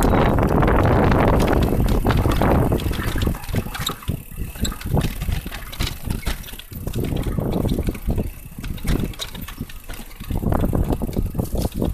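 Wind buffeting the microphone and knobby bike tyres rolling over a dirt, leaf-strewn trail during a fast downhill ride, with rapid knocks and rattles from the bike over bumps. The wind rush is loudest at the start and again near the end.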